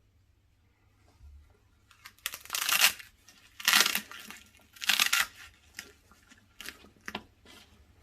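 Packaging of an LED video light kit being torn open: three loud ripping strokes about a second apart, then lighter rustling and clicks.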